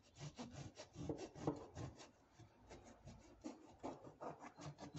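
A bread knife sawing back and forth through the crust of a warm, soft brioche loaf on a wooden board. It makes faint, quick, repeated rasping strokes.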